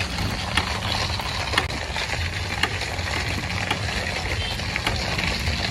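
A steady low mechanical hum with a sharp click about once a second.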